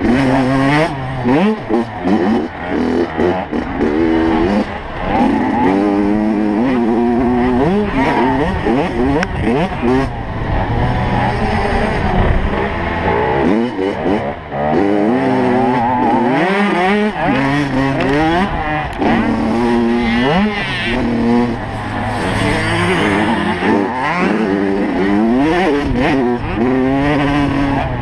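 85cc two-stroke motocross bike engine heard close up on board, revved hard, its pitch climbing and dropping again every second or two as the bike accelerates, shifts and slows.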